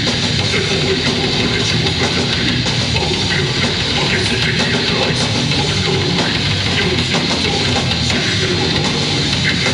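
A live heavy rock band playing loud: distorted electric guitars over a Pearl drum kit, dense and unbroken, as heard from within the crowd in front of the stage.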